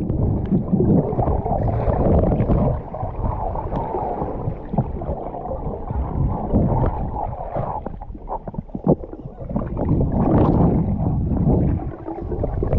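Muffled underwater sound of a camera moving beneath clear lake water: a dull, deep rushing and bubbling with scattered small knocks and clicks. It is louder for the first couple of seconds and again about ten seconds in.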